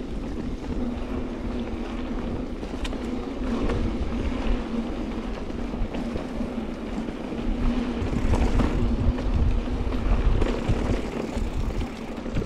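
Mountain bike rolling along a dirt trail: tyres running over the ground and wind rumbling on the microphone, with scattered clicks and rattles from the bike. It gets louder for a few seconds past the middle.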